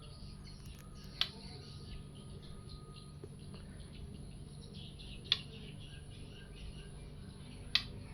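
White-rumped shama chirping faintly, with three short sharp sounds a couple of seconds apart, over a steady low hum.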